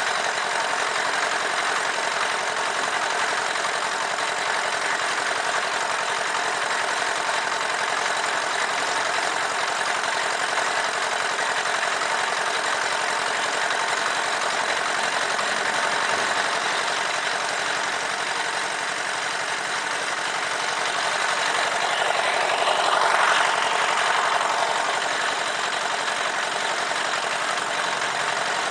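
Portable concrete mixer running: its small single-cylinder diesel engine runs steadily. About three-quarters of the way through, a passing sound briefly swells and fades over the engine.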